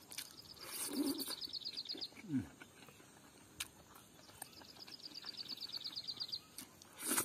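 A small bird sings two quick trills of high, slightly falling notes, about a dozen a second, each under two seconds long and a couple of seconds apart. Under it come soft chewing and mouth sounds of someone eating by hand, with a louder short smack near the end.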